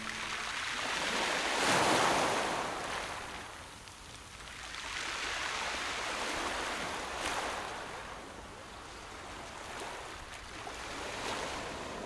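Sea waves washing in, a rushing noise that swells and fades about three times, the first swell the loudest.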